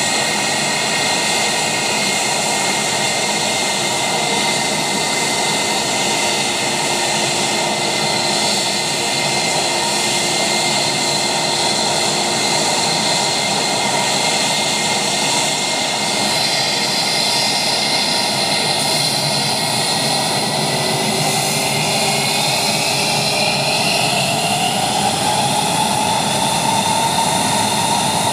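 Airbus A320 jet engines running loud and steady. From about two-thirds of the way through, their whine rises in pitch as the engines spool up.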